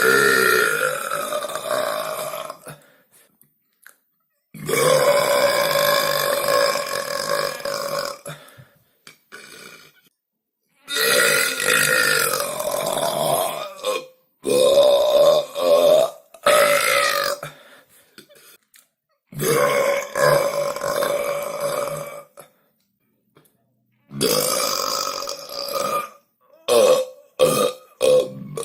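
A 17-year-old boy burping long and loud, one deep pitched burp after another, each lasting two to four seconds with short silent pauses between. Near the end the burps come shorter and choppier.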